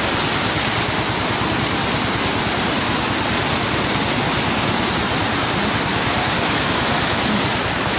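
Muddy flash-flood water rushing and churning down a wadi bed, a loud, steady rush of water.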